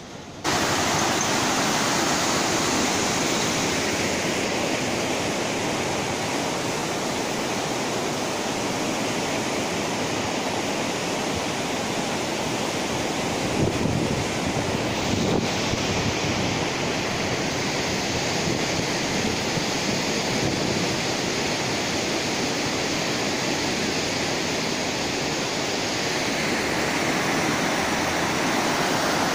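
River water rushing through barrage gates and churning below the piers: a steady, even rush that starts abruptly about half a second in.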